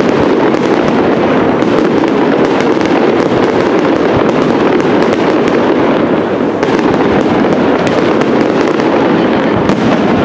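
Aerial fireworks display: a dense, unbroken barrage of firework bursts and crackling, the bangs running together into a steady loud din with many sharp cracks on top.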